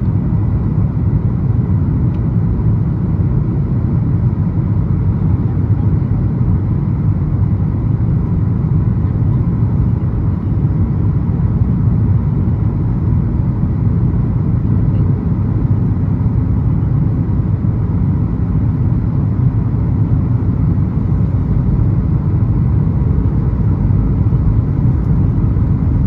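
Steady cabin noise inside a Boeing 737 MAX 8 airliner: an even, low rumble of airflow and the CFM LEAP-1B engines, with faint thin steady tones above it.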